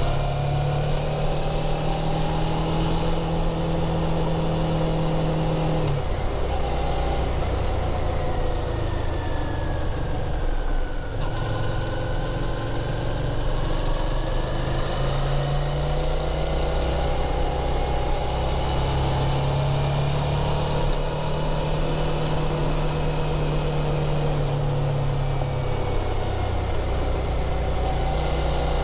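Suzuki V-Strom DL650's 645 cc V-twin engine running through its stock muffler, the engine note stepping up and down in pitch several times.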